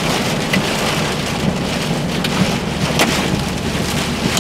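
Heavy rain pelting a car's roof and windshield, heard from inside the cabin as a dense steady hiss. A few sharper hits stand out, over a steady low hum of the car on the road.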